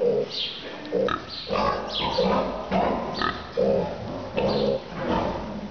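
Piglet making short, repeated calls, about two a second, while restrained for castration.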